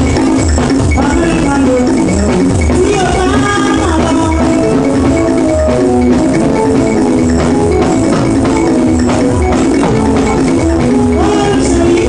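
Loud Nigerian gospel dance music: a steady drum beat with a shaker rattling and melody lines over it.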